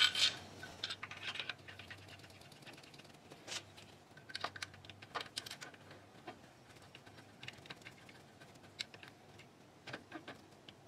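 Irregular light metal clicks and taps as an alternator is set onto its engine mounting bracket and handled into place, the loudest right at the start.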